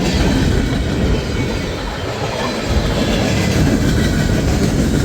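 Freight cars of a long mixed freight train rolling past, steel wheels running on the rails in a loud, steady noise.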